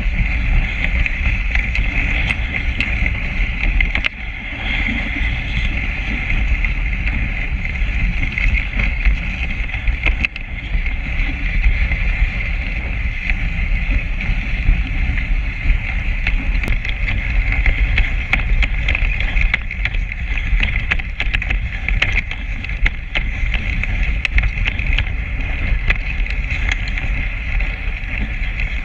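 Steady rushing noise of a dog-drawn rig running over a packed snow trail: rumble and wind on the mounted camera's microphone, a constant hiss, and many small clicks and rattles from the rig.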